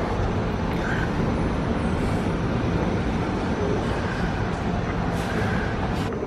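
Steady background rumble of a large shop interior, with a low wash of ventilation and store noise and faint, indistinct voices.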